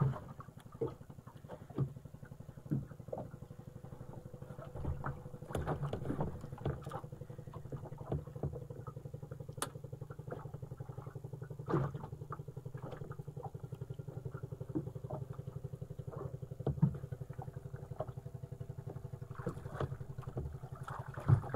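A small engine running steadily at a low, even drone, with occasional short knocks against the boat's hull as the handline is worked.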